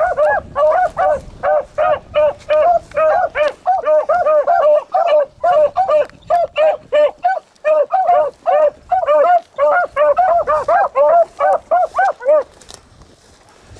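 Beagle hounds barking on a rabbit's trail, a fast run of overlapping barks several a second, stopping about a second before the end.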